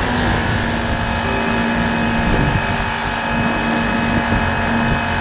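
Electric pressure washer running, its motor and pump giving a steady hum and whine under the hiss of the water jet spraying a concrete walkway.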